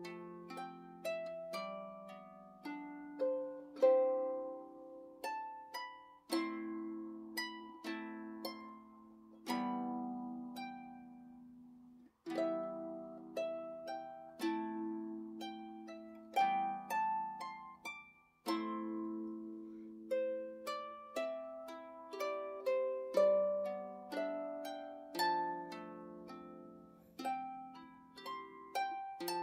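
Celtic harp music: a run of plucked notes that ring out and fade, a melody over lower notes.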